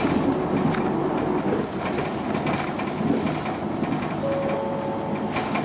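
Running sound inside a 2006 Isuzu Erga PJ-LV234L1 non-step route bus under way: the diesel engine and road noise, with the body and fittings rattling and creaking in frequent short knocks. A brief steady whine comes in about four seconds in.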